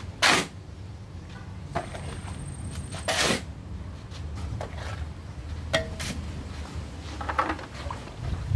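A shovel scooping dry sand and tipping it into plastic buckets: two short, loud swishes of sand sliding off the blade, one about a quarter second in and one about three seconds in, with lighter scrapes and knocks of the shovel against the buckets between them. Near the end, water is poured from one bucket into a bucket of sand.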